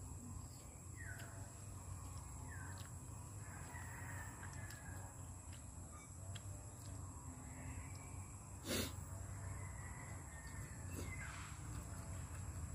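Faint outdoor bird calls, short falling notes every second or two, over a steady low background hum, with one sharp knock about nine seconds in.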